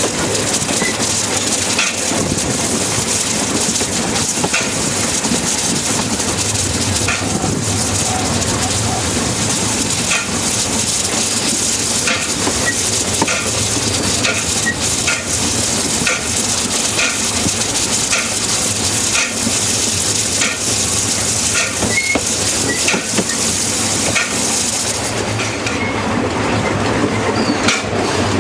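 Narrow-gauge steam train under way: a steady rushing hiss of running noise, with the wheels clicking over rail joints in pairs about once a second. The high hiss falls away near the end.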